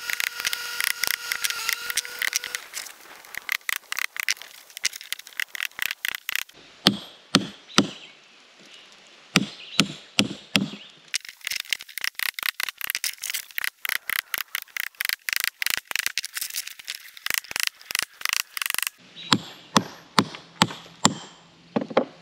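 Hammer striking a chisel held against a stone, working to split it: long runs of quick light taps, several a second, broken by groups of slower, heavier blows.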